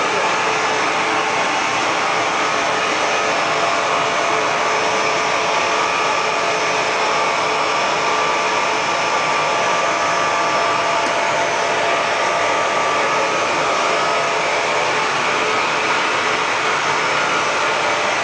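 Blown-film extrusion machine running, with a loud, steady rush of air from the blower that feeds its cooling air ring through flexible hoses. A few faint steady hum tones sit under the air noise.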